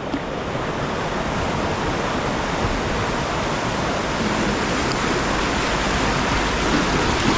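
River whitewater rapids rushing steadily, a little louder toward the end as the kayak moves into the rapid.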